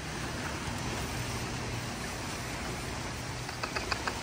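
Steady rush of the fast-flowing canal current, with a low hum beneath. Near the end, a quick run of about six small clicks.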